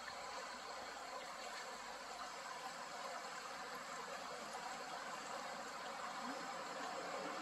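Creek water running steadily over shallow riffles and around rocks.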